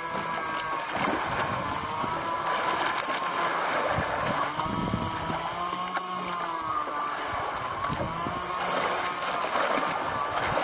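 Spinning reel's drag giving out line in a wavering, ratcheting whine as a hooked grouper pulls the bent rod, over the boat's engine and the rush of water.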